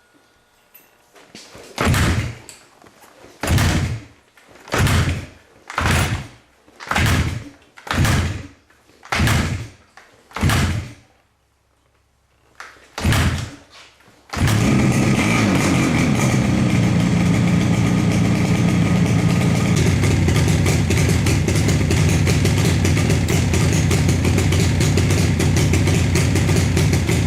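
A 1977 Yamaha RD400's air-cooled two-stroke twin being kick-started: nine kicks each spin the engine over briefly, the last after a short pause, before it catches about fourteen seconds in and keeps running steadily.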